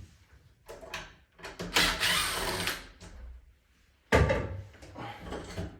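Old closet doorknob being pulled apart and out of a door: metal parts clicking, scraping and rattling, with a sharp knock about four seconds in.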